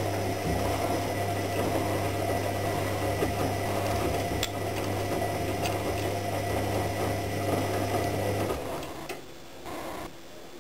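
AEG Lavamat 76730 front-loading washing machine spinning its drum with a steady motor hum. The hum cuts out about eight and a half seconds in as the drum slows to a stop with the wet laundry.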